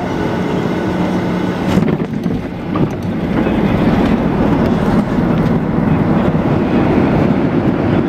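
Passenger jet touching down, heard from inside the cabin: a jolt about two seconds in, then louder steady engine and wheel rumble as the aircraft rolls out on the runway, typical of reverse thrust on landing.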